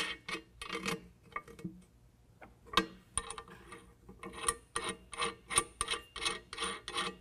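Nuts being turned finger-tight onto bolts through a metal bracket: light metal clicks and taps, one sharper click about three seconds in, then a steady run of ticks about three a second.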